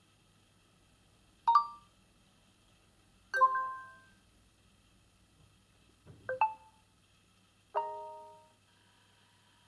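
OPPO A91 smartphone playing four short chime tones through its speaker, one after another with pauses between them, each a different bell-like jingle that rings out within about a second. A soft knock comes just before the third.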